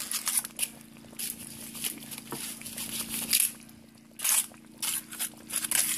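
Aluminium foil crinkling in a string of short rustles as metal tongs grab and shift foil-wrapped baked potatoes in a slow cooker crock.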